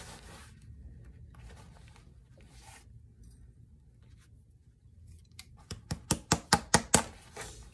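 Faint rustling of the leather upper being worked with lasting pliers on a shoe last. About six seconds in comes a quick run of about eight sharp taps in under two seconds: the pliers' hammer head striking the leather over the last.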